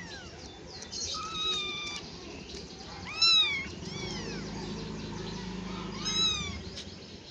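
Kittens meowing to beg for food: several high, arched calls, a drawn-out one about a second in, the loudest pair a little after three seconds, and another near six seconds.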